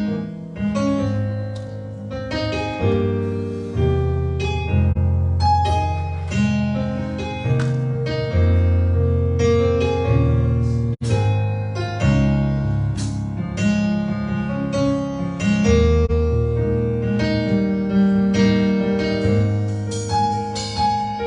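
Keyboard or piano playing sustained chords with a held bass line, an instrumental worship-music interlude.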